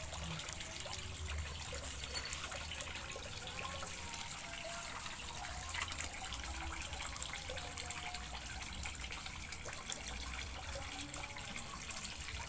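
Water trickling and splashing steadily at a fish pond, with many small splashes and a low rumble underneath.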